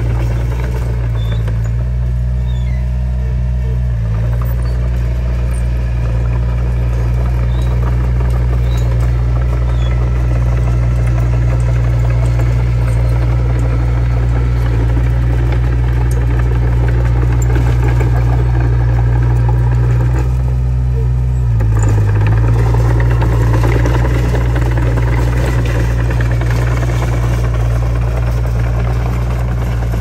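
Komatsu D20P bulldozer's diesel engine running steadily at work, a loud low drone with a rough mechanical noise over it. The engine note shifts briefly a few seconds in and again about two-thirds of the way through.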